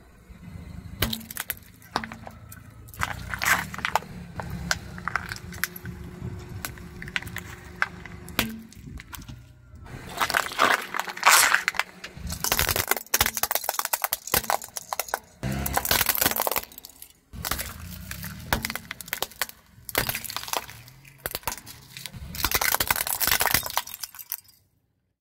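A car tyre rolling over and crushing plastic toys and liquid-filled plastic bottles: repeated bursts of cracking and crunching plastic, some with a sharp glassy crackle, over a low rumble. The sound comes in several separate bursts and cuts off suddenly near the end.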